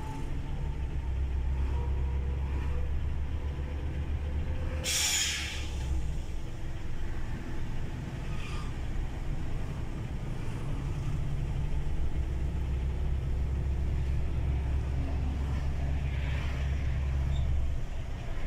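Heavy truck's diesel engine running under way, a low rumble that eases for a few seconds in the middle. About five seconds in there is a short, sharp hiss of air from the truck's air brakes.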